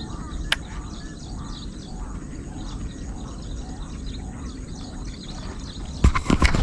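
Rural outdoor ambience: a steady low rumble with birds chirping in the background, a single click about half a second in, and a cluster of loud knocks near the end as the camera is handled.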